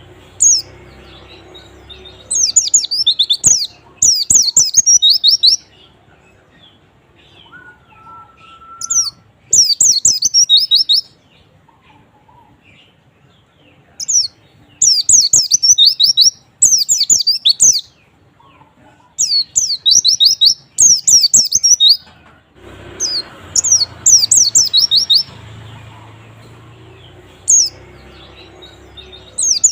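White-eye (pleci) song: phrases of rapid, high, twittering chirps about a second long, repeated with short pauses and a quieter gap near the middle. It is a lure song, played to get a quiet caged white-eye to start singing.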